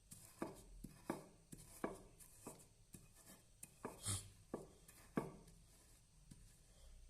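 A faint series of light taps and clicks at uneven spacing, roughly one every half second to second, with a short hiss about four seconds in.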